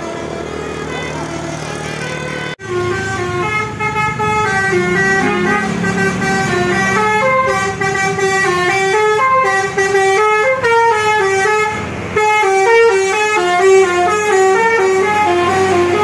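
Road traffic, then from about two and a half seconds in a tour bus's musical telolet (basuri) air horn plays a quick tune of stepping notes, with a few brief pauses.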